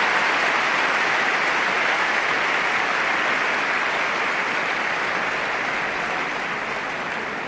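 Tennis crowd applauding a point, the applause slowly dying away.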